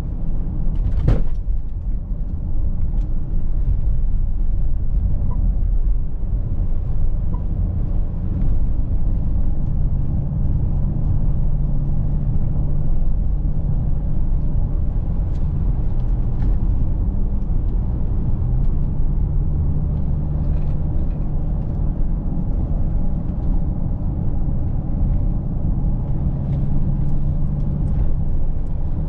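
Mercedes-Benz GLC 300de plug-in hybrid SUV being driven: a steady low rumble of tyre and road noise, with a low hum that comes and goes twice. There is a sharp click about a second in.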